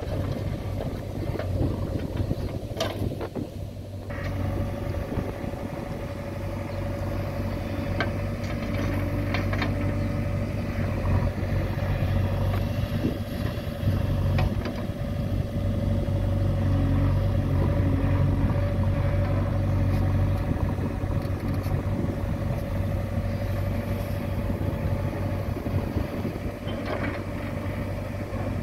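Diesel engines of a JCB 3DX backhoe loader and an Eicher 380 tractor running steadily while the backhoe digs and loads soil into the tractor's trolley, with a steady higher hum joining about four seconds in and a few light knocks.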